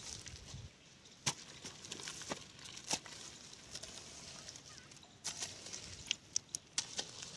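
Dry leaf litter crackling in scattered sharp clicks, a few single ones and then a quick run of them near the end.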